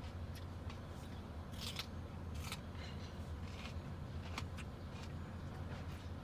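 Low steady engine rumble heard from inside a car, with scattered sharp clicks and scrapes over it, the loudest between about one and a half and two and a half seconds in and again a little after four seconds.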